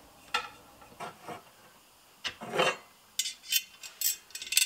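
Handling noises from putting up a metal hanging rail under a kitchen cupboard: a few scrapes and knocks, a longer sliding scrape about halfway, then a quick run of sharp metallic clicks near the end.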